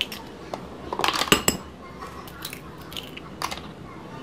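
Chicken eggs cracked on a ceramic bowl and their shells pulled apart, sharp clicks with the loudest cluster about a second in, then a few lighter taps and clicks of shell.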